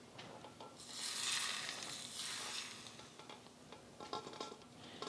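Hot vegetable oil poured over grated ginger and chopped green onions, sizzling quietly as it cooks them; the hiss comes in about a second in and dies away over the next two seconds.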